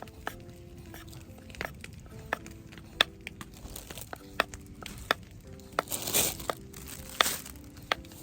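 Soft background music with irregular sharp cracks and snaps throughout, and a brief rustling hiss about six seconds in.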